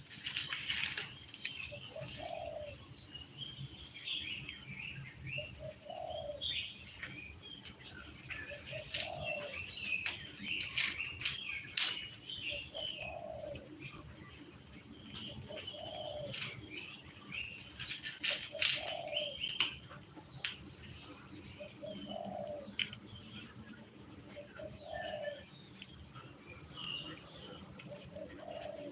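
Birds and insects: a dove cooing every few seconds over small birds chirping, with an insect trilling at a steady high pitch in repeated runs of a second or two, and a few sharp clicks.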